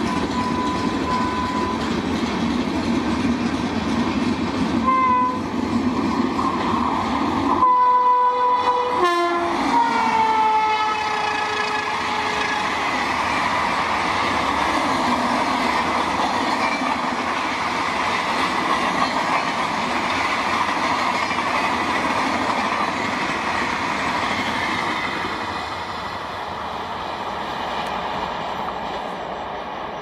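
Passenger trains running past at speed, with a steady rumble and clatter of wheels on rail. An electric locomotive's two-tone horn sounds in short blasts near the start and about 5 s in, then gives a loud long blast around 8 s, and its pitch drops as the locomotive passes. The train noise fades near the end.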